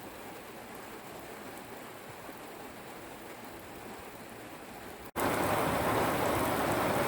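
Heavy rain falling, a steady hiss of drops. About five seconds in it jumps abruptly louder.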